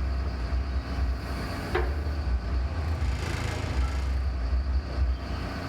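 A large engine running with a steady low rumble. A short sharp knock about two seconds in.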